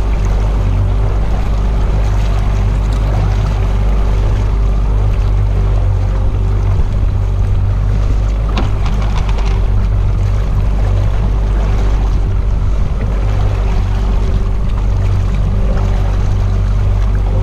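A small fishing boat under way at trolling speed: its engine drones steadily with a constant hum, and water and wind rush past. A few light clicks come about halfway through.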